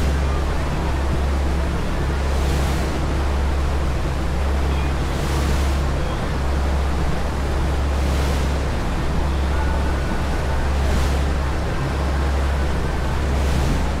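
Passenger ferry under way: its engines give a steady low drone under the rush of the churning wake and wind on the microphone. A hiss swells about every three seconds.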